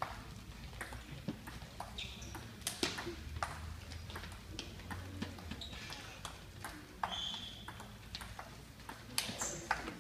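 Table tennis rally: the celluloid ball clicking off the rackets and bouncing on the table in a quick, irregular series of sharp knocks, about two or three a second.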